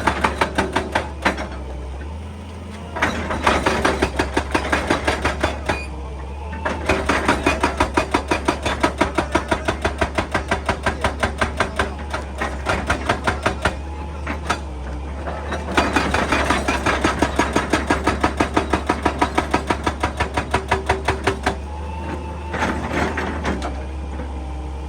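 Excavator-mounted hydraulic breaker hammering rock in rapid, evenly spaced blows, in bursts of a few seconds with short pauses between, over the steady hum of the excavator's engine.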